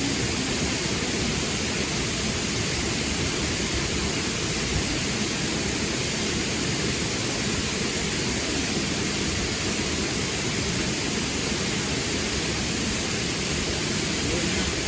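Steady rushing of river water, an even noise that holds unchanged throughout.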